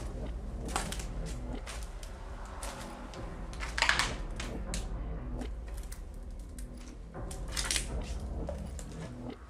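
Footsteps crunching over debris of scattered paper, old floppy disks and broken glass: irregular crunches and cracks, the loudest about four seconds in and another near the end.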